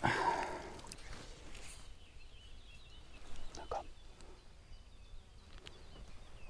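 Quiet outdoor ambience with faint bird chirps. A short swishing noise fades out in the first second.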